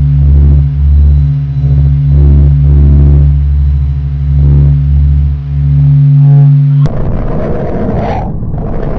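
Space sonification, spacecraft signal data turned into audio: a deep, steady electronic drone of several low hum tones that swells and dips. About seven seconds in it cuts abruptly to a harsh crackling, rushing noise.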